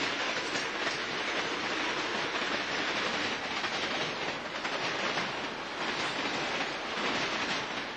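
A Southern Pacific freight train's cars passing close by, their steel wheels on the rails making a steady rolling noise.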